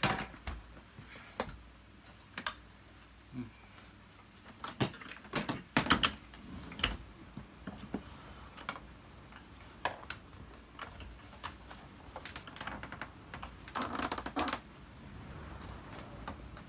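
Scattered hard plastic clicks and knocks from a Hoover Purepower U3450 upright vacuum cleaner being turned over and handled during disassembly, with a short scraping rustle near the end.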